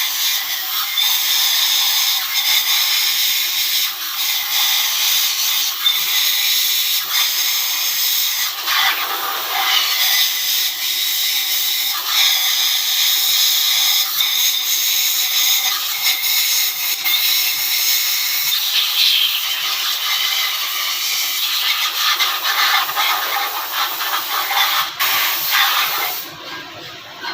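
Loud, steady hissing, like a jet of air or spray, that stops suddenly near the end.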